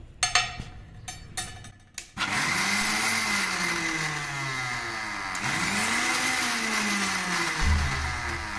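Kitchen mixer-grinder (mixie): a few clicks from the jar and lid, then about two seconds in the motor starts and runs loudly, grinding soaked whole green moong dal with a little water. Its pitch rises and falls twice as it grinds.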